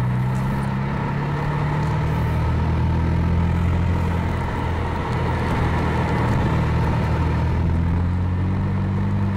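BMW M3 engine running under light throttle at low road speed, heard from inside the car, its note dipping slightly and then rising a little near the end as the car picks up speed.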